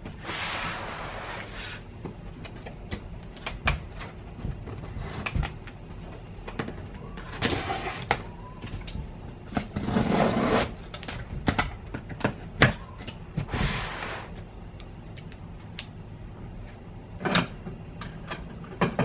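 Cardboard printer box being worked open by hand: scattered knocks and clicks, with several short scraping or tearing noises from the flaps and tape.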